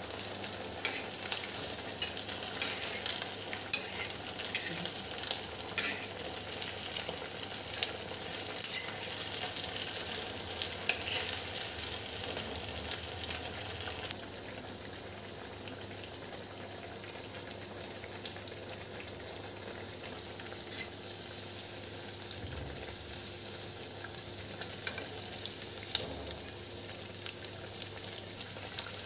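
Sabudana cutlets deep-frying in hot oil: a steady sizzle with many sharp crackles and pops, which changes abruptly about halfway through to a calmer, more even sizzle with only occasional pops.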